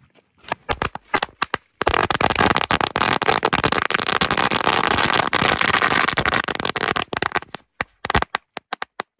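A 1000-cracker string of firecrackers going off: a few scattered bangs, then a dense rapid run of bangs for about six seconds, thinning out to a few last pops near the end.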